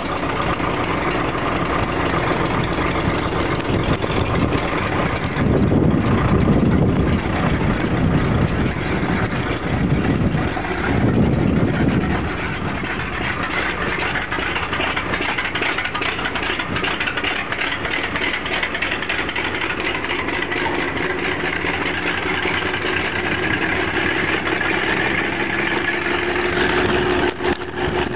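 Burro railroad crane's engine running just after its first start-up. It swells louder twice in the first twelve seconds, then settles into a steady idle.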